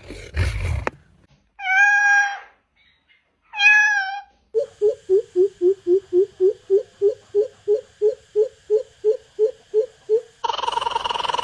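A cat meowing twice, two clear half-second meows. Before them a short rough burst; after them a different call repeats quickly, about three to four short falling notes a second for some six seconds, and near the end a new steady call begins.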